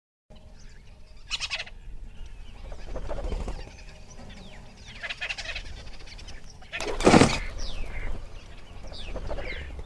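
Bird calls over a low steady nature background: short falling chirps and several longer calls, the loudest about seven seconds in.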